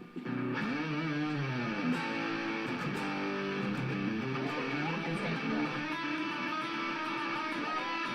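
Electric guitar being played during a band's sound check, a melody whose notes slide up and down in pitch, starting again after a brief break just at the start.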